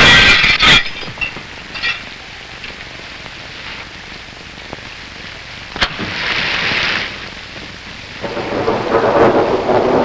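Storm noise on an early sound-film track: rain and thunder, loud in the first second, falling to a low steady hiss, then swelling again about eight seconds in.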